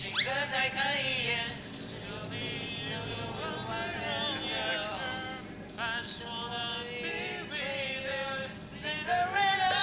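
Pop song playing with a male lead vocal, sung in Chinese with English phrases such as 'be with you' and 'I just wanna'.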